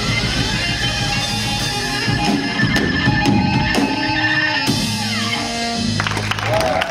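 Live rock band playing the last bars of a song on guitar and drums. The music ends about six seconds in and the crowd begins to cheer.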